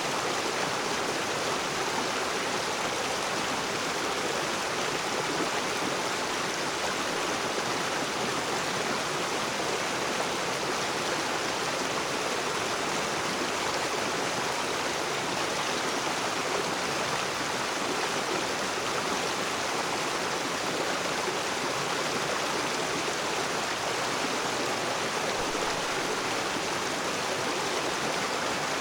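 Rocky river running over stones, a steady even rush of water.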